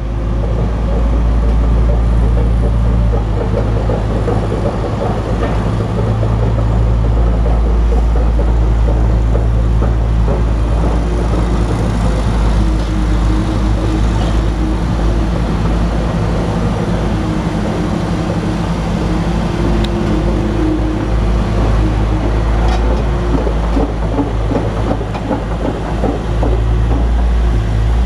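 Hitachi ZX870 crawler excavator travelling on its steel tracks: the diesel engine runs with a steady low drone under a continuous clattering rattle from the track chains.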